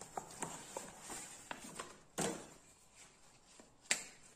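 A padded paper mailer being torn open and a wrapped turban pulled out: paper and packaging crackling and rustling in quick small clicks. There are two louder crinkles, one about two seconds in and one near the end.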